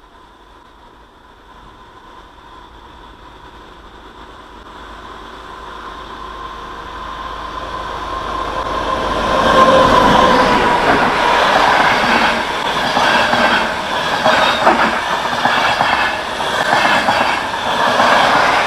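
A train approaching, growing steadily louder over about ten seconds, then passing close with the clatter of its wheels on the rails.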